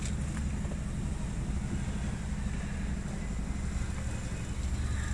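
Steady low drone of a dive boat's engine running under way, with an even hiss of wind and water above it.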